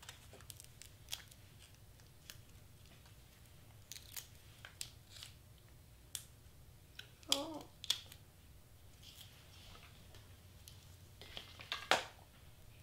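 Faint, scattered clicks and rustles of small adhesive foam mounting squares being peeled and pressed onto cardstock pieces by hand, with a couple of sharper clicks about halfway and near the end.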